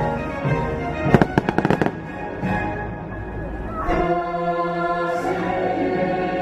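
Fireworks show music playing, with a rapid string of firework bangs and crackles about a second in.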